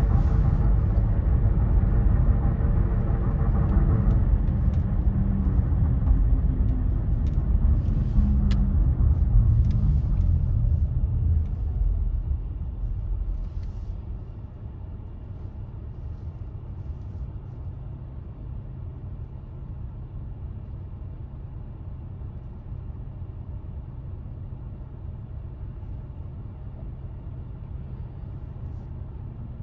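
Motor vehicle rumble with engine tones, loud for about the first twelve seconds, then dying down to a steady low rumble.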